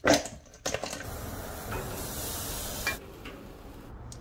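Sauced chicken wings tossed in a stainless steel bowl and set on a hot grill: a loud knock at the start and another shortly after, then about two seconds of steady sizzling hiss that stops suddenly.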